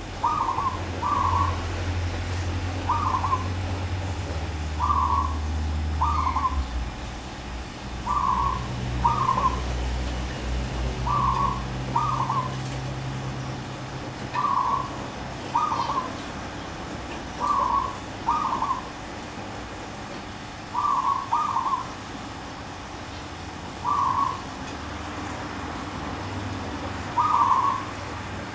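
Zebra dove (merbuk) cooing: short coos, often in pairs, repeated every two or three seconds. A low steady hum sits beneath them through roughly the first half.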